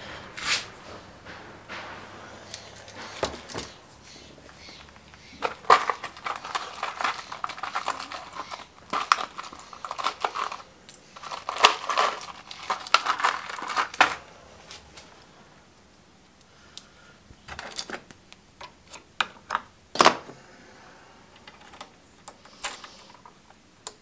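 Hands handling electrical wires and small parts at a workbench: scattered clicks, rattles and crinkling, busiest from about five to fourteen seconds in, then only a few sparse clicks.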